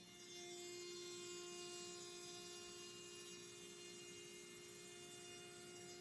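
Spindle of a Zenbot CNC router running steadily with a faint, even whine as the machine makes a pass.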